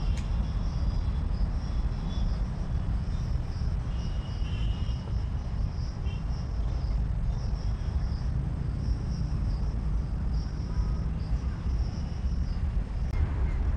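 Insects chirping in a continuous high, pulsing trill over a steady low rumble.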